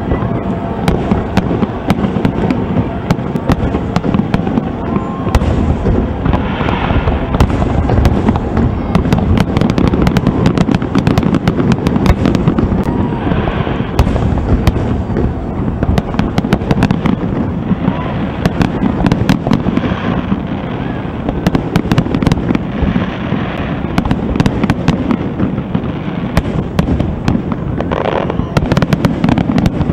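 Fireworks display: a continuous barrage of aerial shell bursts, with booming and many rapid crackling reports overlapping without a break.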